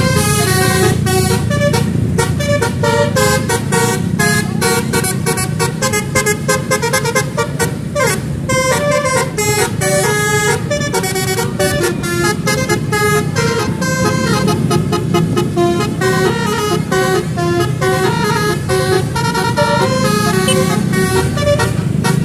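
Basuri musical air horn on a vehicle playing a fast melody of changing notes, over a steady engine and road rumble.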